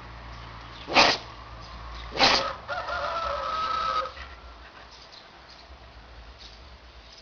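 A pet sneezing twice, sharp and loud, about a second apart, followed by a drawn-out pitched call lasting over a second.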